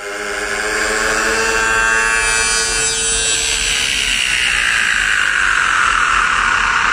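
Trance track in a breakdown: a sustained synth chord with a rising wash of noise that sweeps down in pitch as it builds, with no kick drum or bass. It fades in at the start.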